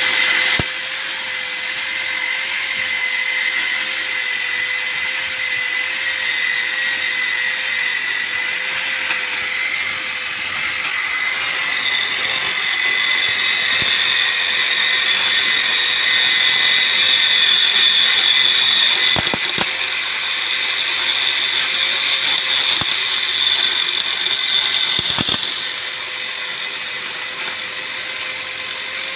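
Mini lathe running steadily on its small electric motor, a whirring drone with a fixed whine. It grows louder and harsher from about a third of the way in, then settles back near the end.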